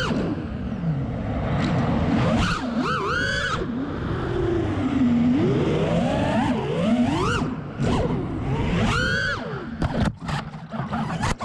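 FPV freestyle quadcopter's brushless motors and propellers whining, the pitch sweeping sharply up and down again and again as the throttle is punched and chopped through flips and rolls. The sound cuts out briefly twice near the end.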